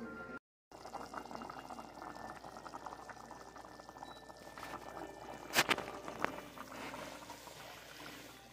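Vegetable soup boiling in a cast iron pot, a steady crackly bubbling, with a sharp knock about five and a half seconds in and a lighter one just after.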